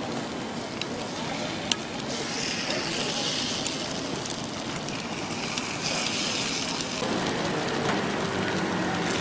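Batter sizzling in a hot cast-iron gukhwappang (chrysanthemum bread) mold, in stretches of hiss, with a few sharp clicks of a metal pick against the iron as the buns are turned. A steady street noise runs underneath.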